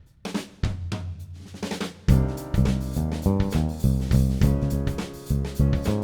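Background music: a light drum intro that opens into a full band with a steady beat and keyboard about two seconds in.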